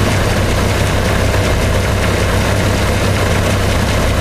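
1990 Jeep Cherokee engine idling steadily.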